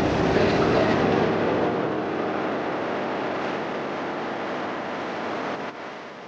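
Steady rumbling noise of a moving train, fading gradually and dropping off sharply near the end.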